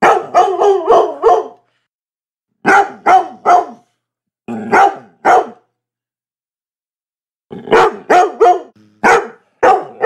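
A dog barking in quick bursts of two to five barks, with short silent pauses between the bursts.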